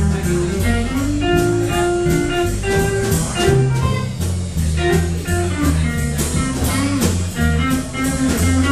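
A small jazz combo playing live: a hollow-body electric guitar over an upright double bass line and a steady drum-kit beat.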